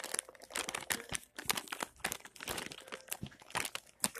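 A dog rummaging with its head in a Cracker Jack package: the packaging crinkling and rustling in quick, irregular crackles.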